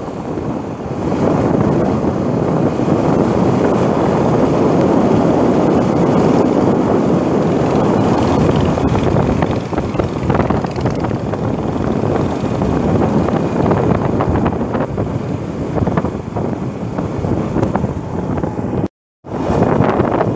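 Wind rushing over the microphone of a moving motorcycle, mixed with engine and road noise, steady throughout. The sound cuts out for a moment near the end, then resumes.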